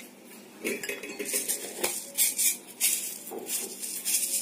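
Kitchen utensils clinking and rattling in a string of short knocks, with one sharp click about two seconds in: a spoon knocking against containers while ingredients are handled.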